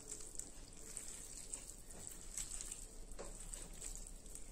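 Faint wet squelching of a hand kneading raw chicken pieces through a thick spice marinade in a steel pot, with a few soft clicks.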